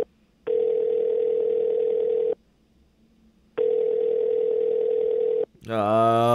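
Telephone ringback tone of an outgoing call ringing unanswered: a steady single-pitched tone that ends just at the start, then rings twice more for about two seconds each with short silent gaps.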